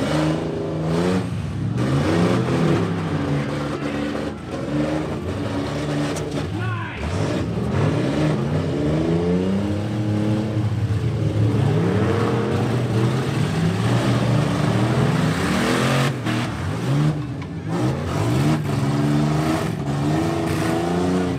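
Several demolition-derby pickup truck engines revving hard, pitch climbing and falling again and again as the drivers push and ram each other. There are a few sharp knocks of trucks colliding near the end.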